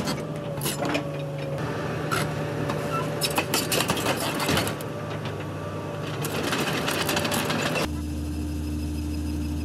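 Crawler excavator travelling over gravel: the steel track links clank and rattle in irregular knocks over the steady hum of the engine and a constant whine. About eight seconds in, the sound switches abruptly to a steady low hum with no knocking.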